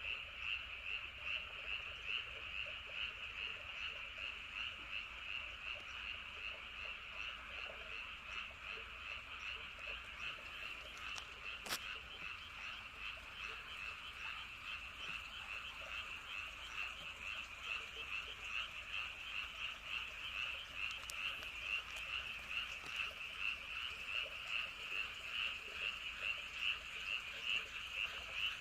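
A chorus of many frogs calling together at night, a dense, steady, rapidly pulsing croaking. One sharp click about twelve seconds in.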